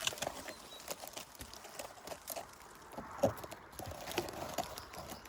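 Footsteps through scrub and brambles: irregular rustling and the crackle of stems and twigs, with the loudest snap about three seconds in.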